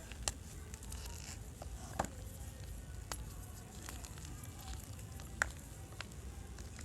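Fresh gym chalk crunching and crumbling: a few sharp cracks spaced a second or more apart, with fainter crackling between them over a low steady hum.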